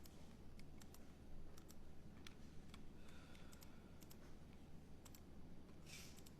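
Faint, irregular computer mouse and keyboard clicks over a low steady hum.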